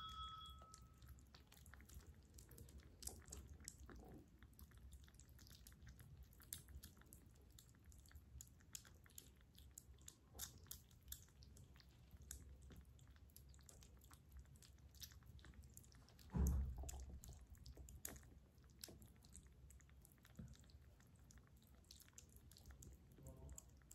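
Several kittens eating from bowls: faint, soft chewing and smacking with many small quick clicks. A louder low thump comes about two-thirds of the way through.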